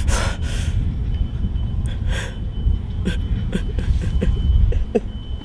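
Wind rumbling on a handheld camera's microphone while a man gasps sharply a few times in the first two seconds, then makes short strained sounds with small clicks as he grimaces in distress.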